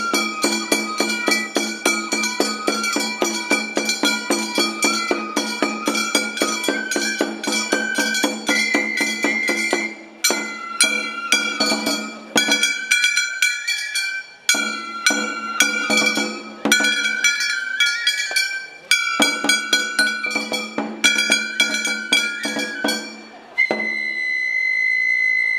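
Gion festival furyu hayashi: transverse flutes play a high melody over rapid, even strikes of drums and metal percussion. After about ten seconds the music comes in short phrases with brief breaks. Near the end the percussion stops and a single high flute note is held.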